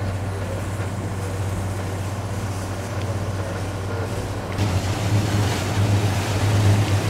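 Steady low hum of nearby motorboat engines over a wash of water and wind noise. About four and a half seconds in, it grows louder and rougher.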